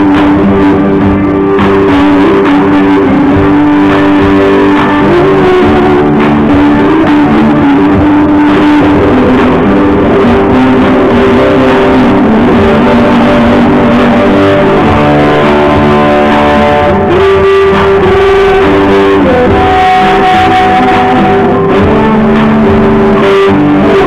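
A small band playing a song live: electric guitar over a backing track, with a woman singing into a microphone in long held notes.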